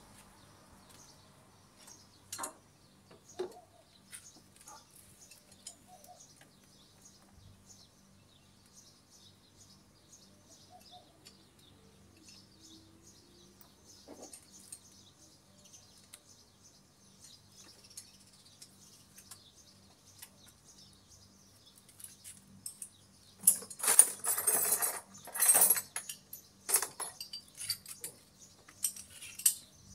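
Metal hand tools, a ratchet and socket extension, clinking and rattling in a loud cluster of sharp clatters about two thirds of the way in, with a few more clicks near the end. Before that there are only scattered small taps, faint bird chirps and a low steady hum.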